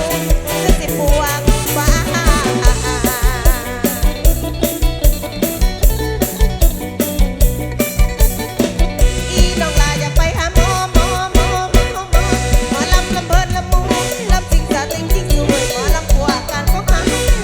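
Live mor lam band playing a lively toei: a driving, regular drum beat and heavy bass under melodic lines, loud and continuous.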